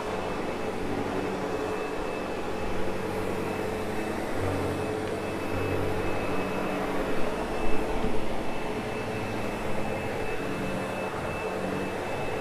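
Sebo X8 upright vacuum cleaner running steadily with a constant whine while it is worked over a carpet, the low rumble swelling and easing with the strokes, with a few short bumps about two-thirds of the way through.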